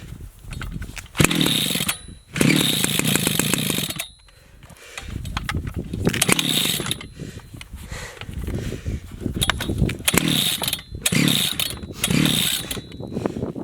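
Two-stroke chainsaw being pull-started over and over: about seven yanks on the starter rope, each a short burst of the engine turning over, a couple running on for a second or so, but it never keeps running. The owner suspects the engine is flooded.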